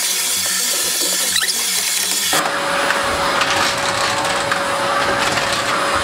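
Canister vacuum cleaner running, its nozzle dragged over a foam floor mat with a steady motor whine and rush of air. About two seconds in the sound changes abruptly to a rougher, hissier rush with scraping ticks.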